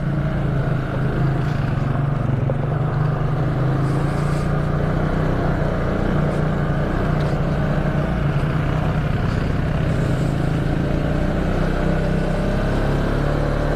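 Quad bike (ATV) engine running steadily as it is ridden up a dirt road, its pitch holding nearly even with small changes.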